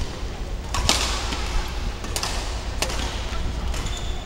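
Badminton rackets striking a shuttlecock in a doubles rally: three sharp smacks within about two seconds, over a steady low hum in the hall.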